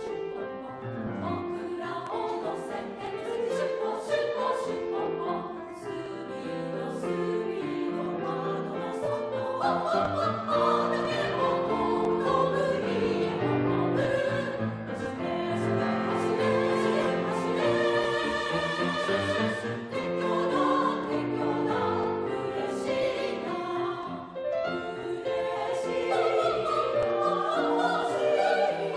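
Women's three-part choir singing a Japanese children's song about a steam train, with piano accompaniment.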